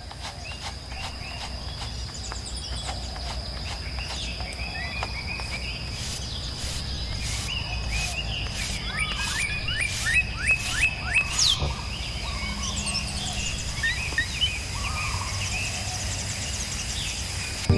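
Small birds chirping, with short rapid calls that get busier partway through, over a steady high-pitched whine and a run of sharp taps.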